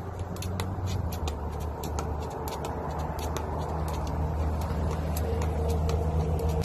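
Skipping rope slapping the ground in a quick, even rhythm, about two to three slaps a second, over a loud, steady low hum.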